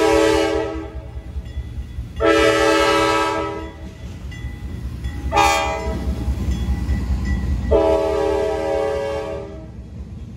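Locomotive air horn sounding a chord of several tones in the long, long, short, long pattern of the North American grade-crossing signal, over a low rumble.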